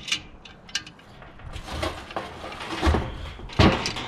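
Handling sounds: scattered light clicks and knocks, a dull thump, then one sharp knock shortly before the end.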